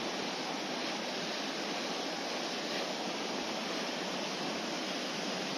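A shallow, rocky river rushing over boulders and small cascades: a steady, even rush of water.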